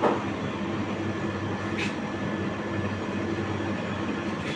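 Steady mechanical hum with a low rushing noise, with a short knock at the start and a faint tap about two seconds in.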